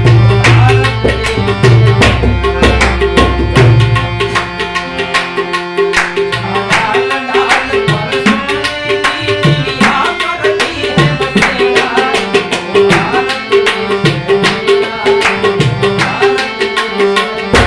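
Instrumental interlude: a harmonium melody of held, reedy notes over a steady tabla rhythm of sharp strokes and deep bass booms.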